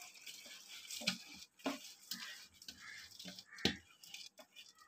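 Drained rice being swept by hand off a steel bowl into a pot of water and masala: faint soft patters of grains dropping into the liquid, with a few light knocks of the steel bowl.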